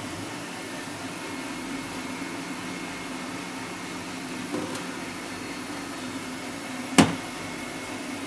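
Steady low hum of a kitchen appliance, with a faint tap about four and a half seconds in and a single sharp clink of kitchenware about seven seconds in, as vinegar is spooned into pickle jars and tin lids are set on them.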